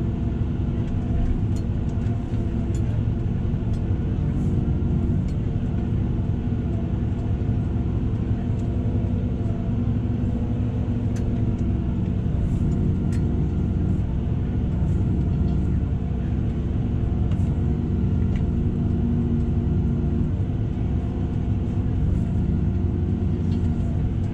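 Tractor engine running steadily under load while pulling a tillage implement, heard from inside the cab. Faint clicks are scattered through it.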